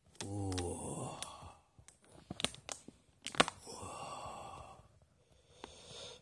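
A person lets out a long voiced sigh, falling in pitch, starting about half a second in. Around the middle come a few sharp crackles of the burger's plastic film wrapper being handled, the loudest sounds, followed by another long breathy exhalation.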